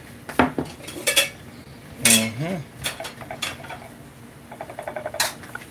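Scattered clinks and knocks of a utensil against glass dishes while fritters are set on a glass plate around a glass bowl, with a quick run of fine rattling clicks shortly before the end.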